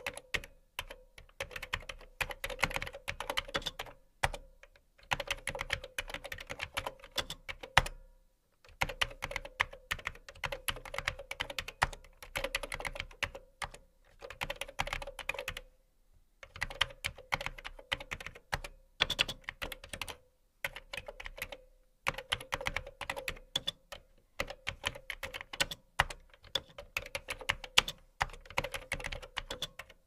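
Typing on a computer keyboard: runs of rapid keystroke clicks lasting a few seconds each, broken by short pauses.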